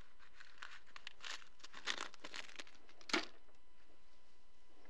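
Clear plastic fishhook packet being crinkled and torn open by hand: a run of faint crackly rustles, with one sharper crackle about three seconds in.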